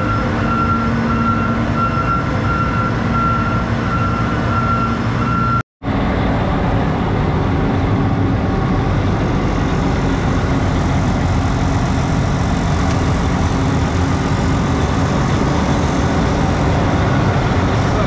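A John Deere cotton picker's diesel engine running steadily, with a repeated electronic warning beep pulsing for the first five seconds or so; after a brief dropout the engine keeps running.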